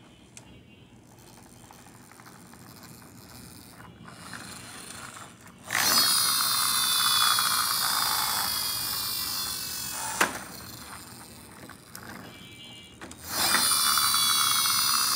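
Toy cement mixer truck's gears whirring as it is worked by hand: a mechanical whine, falling slowly in pitch. It comes twice, starting about six seconds in and again about thirteen seconds in.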